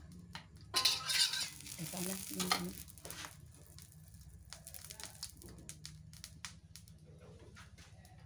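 Metal spatula scraping and clattering in an iron wok on a gas stove, followed by light, scattered crackling from the heated wok.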